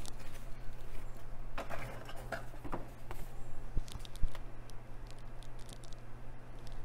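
Stiff cardboard punch-out sheets from a board game being handled and turned over by hand: scattered light rustles and taps, over a faint steady low hum.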